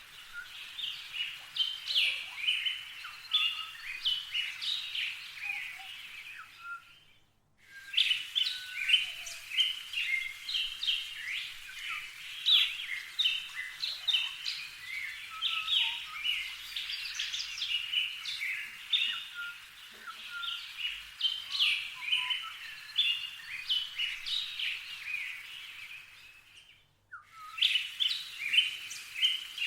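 Small songbirds chirping in a dense, busy run of short, high chirps. It drops out abruptly twice, about a quarter of the way in and near the end.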